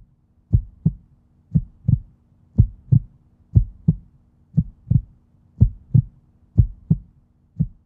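Outro sound of heartbeat-like double thumps, one pair about every second, over a faint steady low hum.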